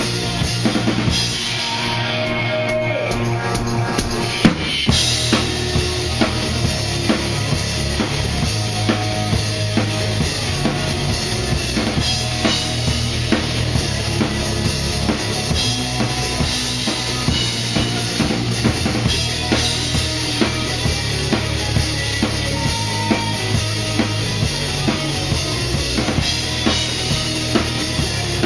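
Rock band playing a song at full volume, the drum kit loudest: a steady beat of bass drum and snare under cymbals, with guitar and bass. A few seconds in, the cymbals drop away briefly and come back with a loud hit.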